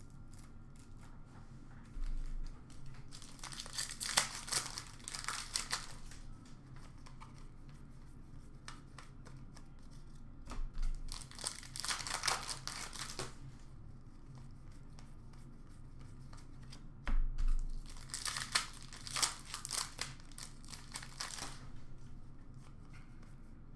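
Plastic hockey card pack wrappers being torn open and crinkled by hand, in three bouts of crackling with quieter card handling between them. Each bout begins with a soft bump.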